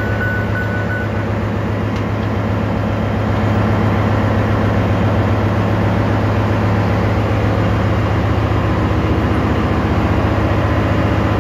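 Steady loud drone of ship's engine-room machinery: a deep hum over a dense mechanical rumble. A thin high whistle stops about a second in.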